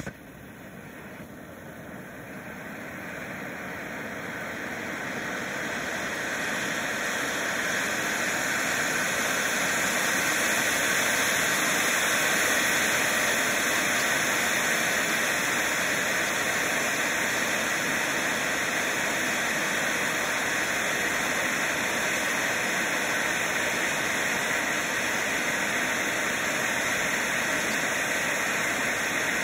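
Black Cat Titanium Fountain firework burning: a steady rushing hiss from its spark spray, growing louder over about the first ten seconds and then holding steady.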